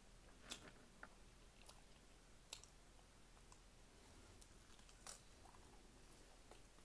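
Near silence broken by a handful of faint, sharp clicks and smacks of eating: curly fries being picked up by hand and chewed.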